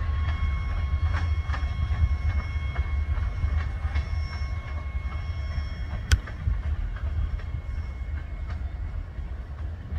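Freight train rolling slowly past at close range: a steady low rumble with repeated clicks of the wheels and faint high ringing tones that come and go. A single sharp clack stands out about six seconds in.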